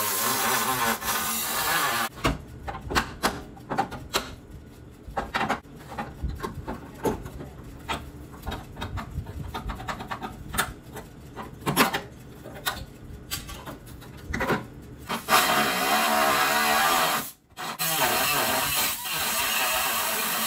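Cut-off wheel grinding through the steel top of a car's frame rail, with its pitch wavering under load. It stops about two seconds in, giving way to a long run of sharp metal clicks and knocks. The cutting starts again about 15 seconds in, breaks off briefly, then carries on.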